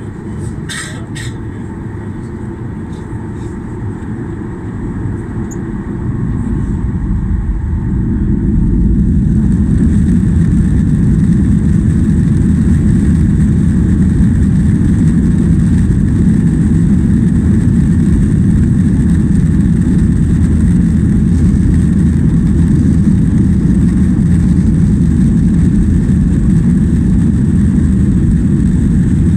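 Boeing 737-800's CFM56-7B jet engines heard from inside the passenger cabin, spooling up to takeoff thrust. The engine noise grows louder over a few seconds about a quarter of the way in, then holds steady and loud through the takeoff roll. A few faint clicks near the start.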